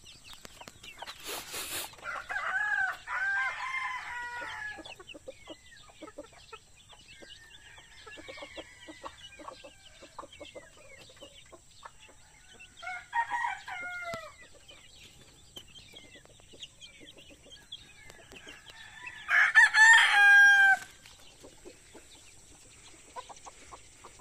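Native chicken chicks peeping throughout, with a rooster crowing loudly about twenty seconds in. Shorter calls from adult chickens come about two and thirteen seconds in, and there is a single knock near the start.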